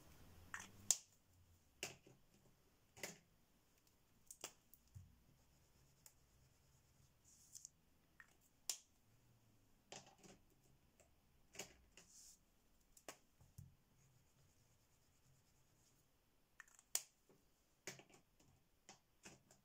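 Near silence broken by about fifteen faint, irregular clicks and taps of plastic gel crayons and their caps being handled, with brief soft scratching of crayon on paper while swatching.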